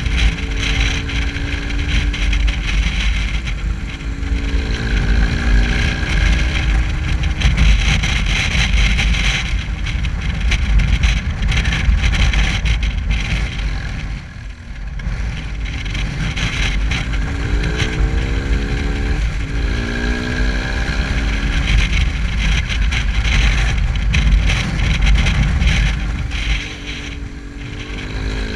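Motorcycle engine running on the road under heavy wind buffeting on the camera microphone. The engine note climbs in pitch several times as the bike accelerates, most clearly twice past the halfway mark. The sound dips briefly about halfway through.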